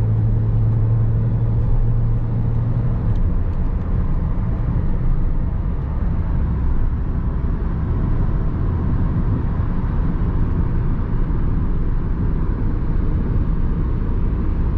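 A car running, with a steady low rumble of engine and road noise. A low hum drops out about three seconds in.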